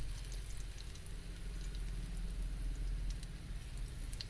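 Spinach and gram-flour fritters (palak bhaji) frying in hot oil as more batter is dropped in by hand, a soft sizzle with scattered small crackles. A steady low hum sits underneath and is the loudest part.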